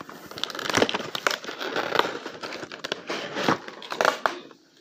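Toy belt packaging crinkling and crackling as it is handled and pulled apart to free the belt, in irregular rustles and snaps that stop briefly near the end.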